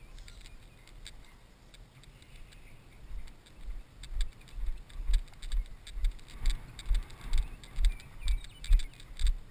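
A person's walking footsteps, heard through a body-worn camera as regular low thuds about two a second with light crunching and clicks, starting a few seconds in; before that only faint rustling.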